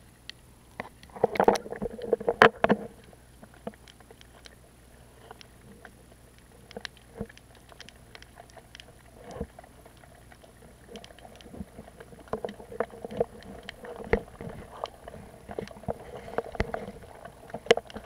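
Muffled water sound heard from a camera held underwater while snorkelling: scattered sharp clicks and knocks, with bursts of sloshing and bubbling about a second in and again through the last several seconds.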